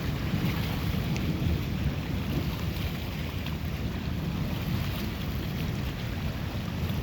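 Storm wind buffeting the microphone: a steady low rumble, with faint scattered ticks.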